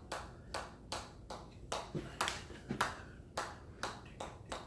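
Regular light clicks or taps, about two and a half a second, keeping time with a set of exercise reps.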